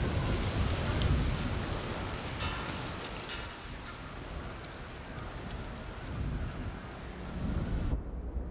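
Steady rain falling with low rolling thunder, the rumble strongest early on; the rain hiss cuts off abruptly near the end.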